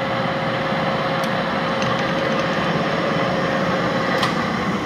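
Mori Seiki 17x50 precision engine lathe running under power: a steady whir of the spindle and gear train, with a faint steady tone and a couple of light clicks.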